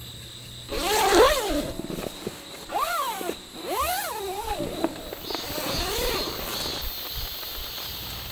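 Small white dog vocalizing in about four short whines that rise and fall in pitch, the first starting about a second in and the last coming around six seconds in.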